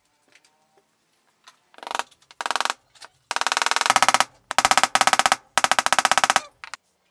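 Power drill run in five short bursts, each a fast, even rattle, as a steel tube bites into pine.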